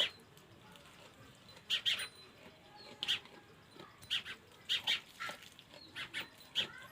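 A small animal giving short, sharp, high-pitched squeaks, often two at a time, repeated irregularly a dozen or so times.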